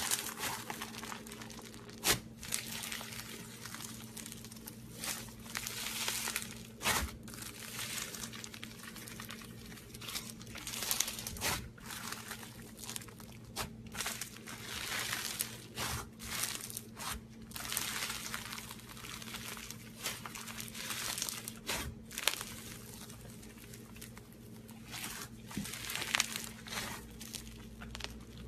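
Crunchy slime being squeezed and worked, crackling and popping in irregular bursts with a few sharp snaps, over a faint steady low hum.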